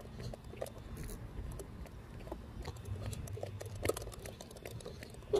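Faint footsteps and rustling: scattered, irregular soft clicks and crunches over a steady low rumble.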